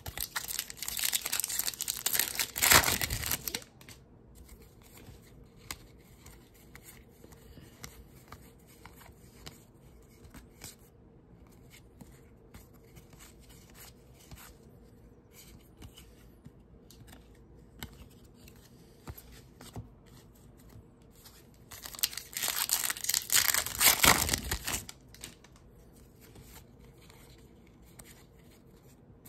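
Wrappers of 2023 Topps Series 2 baseball card packs being torn open, in two loud tearing, crinkling bursts about twenty seconds apart. Between them come soft clicks of cards being handled and flipped through.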